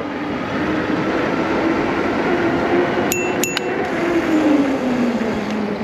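Rush of wind and road noise from an electric bike accelerating through city traffic, with a faint hum that drops in pitch near the end. About three seconds in come two sharp metallic clinks, close together.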